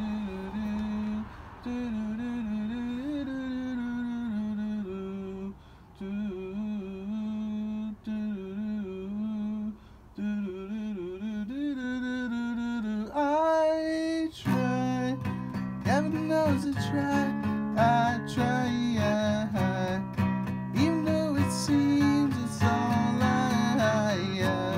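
A man humming a slow melody with acoustic guitar. About halfway through, the guitar and voice get louder and fuller, and he sings out over the strumming.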